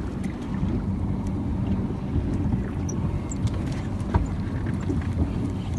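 Steady low rumble of a small boat on open water, heard through a phone's microphone, with a few faint clicks.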